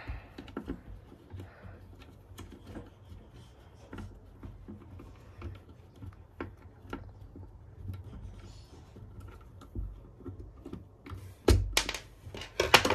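Screwdriver working screws out of a cordless drill's plastic housing: scattered small clicks and ticks of the bit against the screws and plastic. A couple of louder knocks come near the end.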